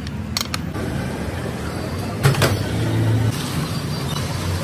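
Steady low mechanical rumble with a few sharp clicks near the start and a louder clatter a little after two seconds in, followed by a low hum for about a second.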